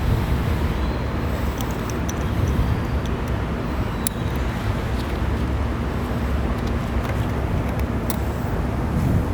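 Steady low background rumble with a few small, sharp plastic clicks scattered through it, from wiring harness connectors being plugged onto the fuel injectors.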